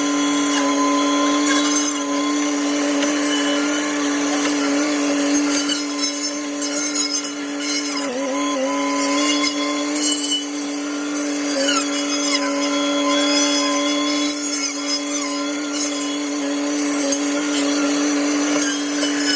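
Tractor-mounted hedgecutter saw blade spinning, with the tractor engine running underneath: a loud, steady hum that dips briefly in pitch about eight seconds in and again, slightly, near twelve seconds.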